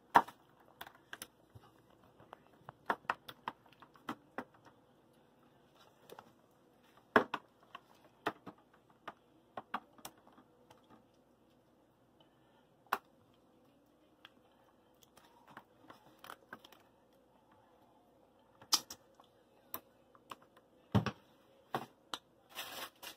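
Scattered light clicks and taps of a spoon and pot against a disposable aluminium foil pan as meat sauce is spooned and spread into it, with a few louder knocks, over a faint steady hum.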